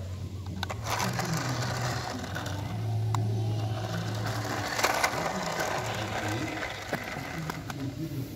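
A toy remote-control car's small electric motor and plastic gearbox whirring steadily as it drives, with a few sharp clicks along the way.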